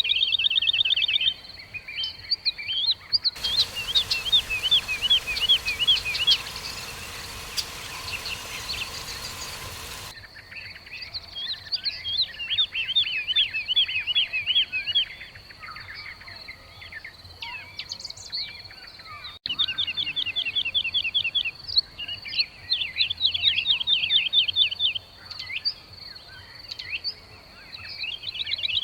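Weaver birds chattering, in repeated quick runs of high chirps, over a steady high insect-like whine. A rushing hiss sits under the birds from about three to ten seconds in.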